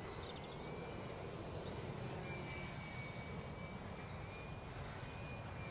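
Electric model airplane flying high overhead: its brushless motor (Waypoint W-E2205-32) and small APC 6x4 propeller give a faint, thin whine that wavers slightly in pitch.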